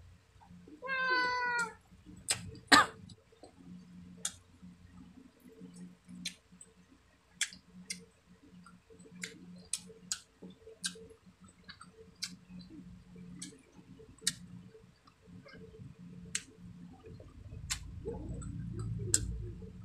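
A domestic cat meows once, a single wavering call about a second in. Around it are close-up eating sounds: sharp wet smacks and clicks of chewing every second or so, the loudest a little under three seconds in.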